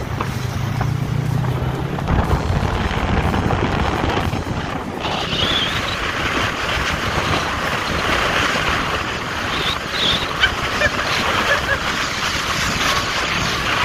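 Polaris RZR XP4 side-by-side running under way, with wind rushing over the microphone that largely covers the engine; the rushing gets brighter and hissier about five seconds in.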